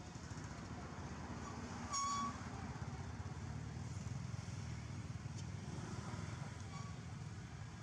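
Steady low background rumble, with one short high-pitched toot about two seconds in, the loudest sound.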